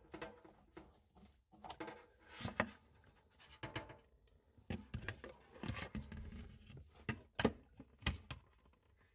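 Handling noise from gloved hands working a braided stainless-steel flexible hose and a plastic basin beneath a sink: irregular clicks, knocks and rubbing, with a few sharper knocks about two and a half seconds in and near the end.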